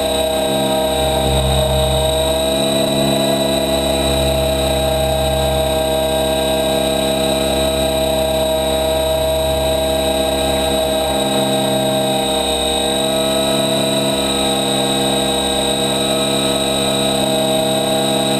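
Helicopter in flight: a steady turbine whine made of several high, even tones over the low drone of the rotor, holding level throughout.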